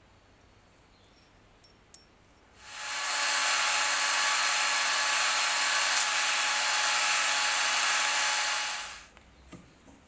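A power drill spins a small brass tube while sandpaper is held against it: a steady hiss of sanding over the drill's motor whine, which swells in about three seconds in and stops about six seconds later. A single sharp click comes just before it.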